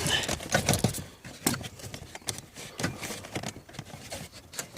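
Irregular clicks and knocks of plastic dashboard trim and clips being handled and worked loose.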